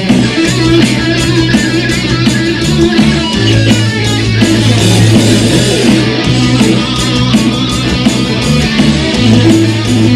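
Live rock band playing loudly: electric guitar, bass guitar and drum kit, with a steady beat.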